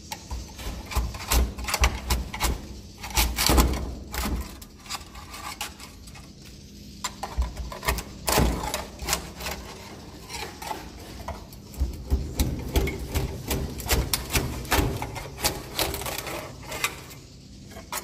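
Pole-mounted nest scraper working at swiftlet nests on wooden ceiling planks: irregular scraping, clicking and knocking with dull thumps as the blade pries nests loose into the net basket. The busiest bursts come at the start, about eight seconds in, and again in the last third.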